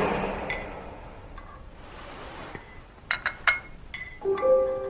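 A few sharp, light clinks of a teaspoon against a china teacup, about three seconds in. Soft music with held notes comes in near the end.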